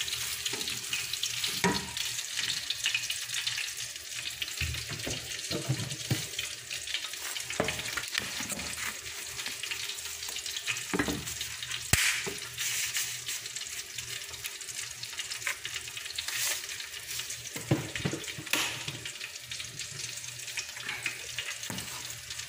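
Soaked rice grains sizzling as they are sautéed in melted butter in a stainless steel pot, with a wooden spatula scraping and knocking against the pot now and then. A sharp click about halfway through.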